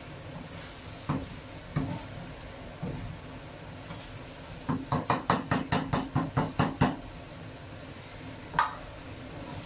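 Spatula knocking and scraping against a wok while stir-frying sweet potato jelly cubes: a few single knocks, then a quick run of about a dozen strikes, roughly five a second, over two seconds, and one last knock near the end. A steady hiss runs underneath.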